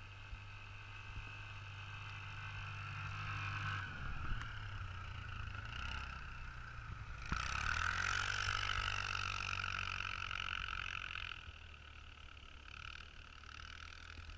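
ATV fitted with half tracks running across snow, its engine and tracks getting louder as it comes close about seven seconds in, then fading as it moves away.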